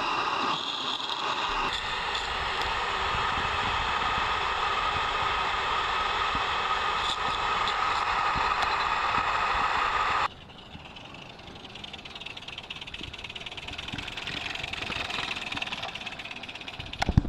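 Live-steam garden-scale model steam locomotive running with a steady hiss of steam. About ten seconds in, the sound drops abruptly to a quieter steady hiss.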